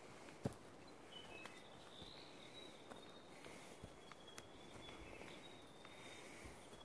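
Faint, thin, high insect trills that come and go in stretches over quiet forest ambience. A few soft footfalls on the track are heard, with one sharp click about half a second in.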